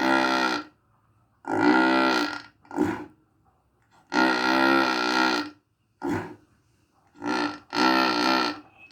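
Limousin heifer snoring in her sleep: a run of loud, pitched, grunting snores, about seven of them, each up to about a second long with short silent gaps between. The owner says the snoring is a habit and the heifer is healthy.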